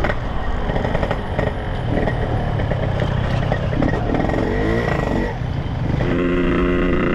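Yamaha RX-King two-stroke single-cylinder motorcycle engine running while riding in traffic, its pitch wavering, then settling into a steady, even drone about six seconds in.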